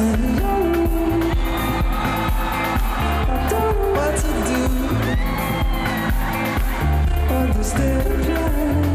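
Live pop-rock band playing, with electric guitar, drums and a heavy pulsing bass line under a man's singing voice.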